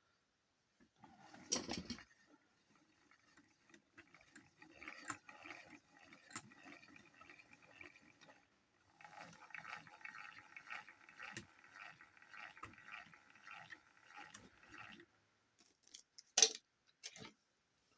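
Small motor running with a steady high whine and a metallic rattle, pausing briefly about halfway and stopping near the end, followed by a few sharp clicks.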